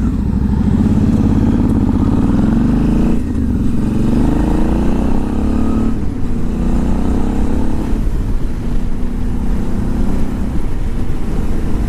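Motorcycle engine accelerating through the gears while riding: the pitch rises, drops at a shift about three seconds in, rises again and drops at a second shift about six seconds in, then settles near steady cruising speed, over a steady low rumble.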